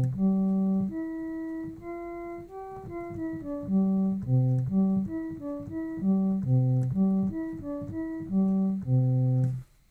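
Homemade additive synthesizer playing a cello-like patch from a keyboard: a line of held notes over louder low bass notes. The notes die away a little too quickly; the player calls the decay still a bit fast.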